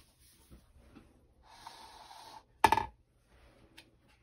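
A hardcover picture book being opened by hand: a short rubbing slide of the cover and paper, then one short sharp knock a little past halfway, as the cover comes down, and faint soft handling of the pages after.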